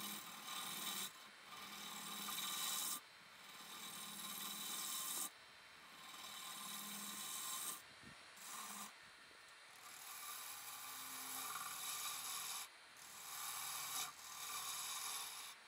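Turning tool cutting into a laminated wooden platter blank spinning on a lathe, a hissing scrape in about seven passes with short breaks between them, as the recess in the base is cut.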